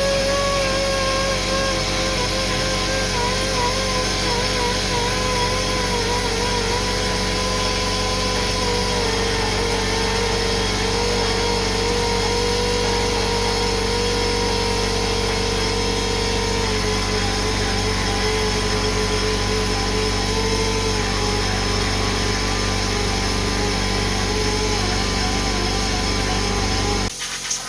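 Electric power tool motor running steadily under load for a long stretch, its whine wavering and slowly sinking in pitch, then stopping abruptly near the end.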